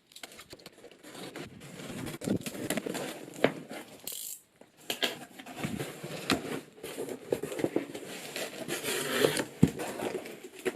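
A cardboard shipping box being opened and its packing handled: irregular rustling, scraping and knocks, with plastic air-cushion packing crinkling.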